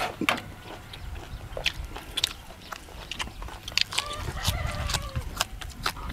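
Close, wet chewing and biting with scattered sharp clicks and crunches: a man eating fresh herbs with raw duck blood salad.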